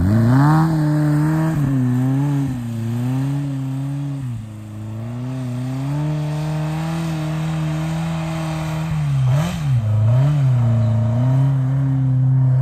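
A 1959 VW bus's air-cooled flat-four engine revving up and down under hard throttle in snow, with quick drops and rises in revs just after the start and again about nine and ten seconds in. In the middle it holds steady revs and grows quieter as the bus drives away, then comes back louder near the end.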